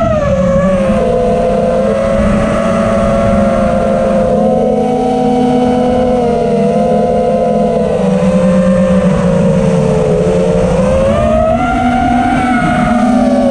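FPV quadcopter's brushless motors and propellers whining, heard from the camera mounted on the quad, over a steady low rumble. The pitch wavers with the throttle and rises toward the end.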